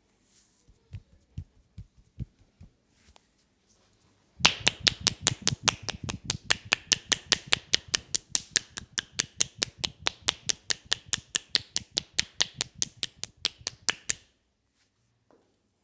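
Hands tapping rapidly on an oiled leg in a percussive massage: a fast, even run of sharp slaps, about five or six a second, starting about four seconds in and lasting about ten seconds, after a few light scattered taps.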